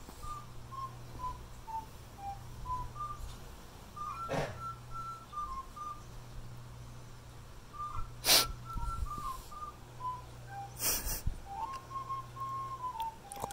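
A person whistling a slow tune, short notes stepping up and down, with a longer held note near the end. Three short bursts of noise cut in, the loudest about eight seconds in.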